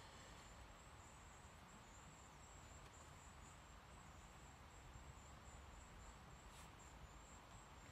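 Near silence: faint outdoor background hiss with a thin, steady high-pitched tone and a faint tick or two.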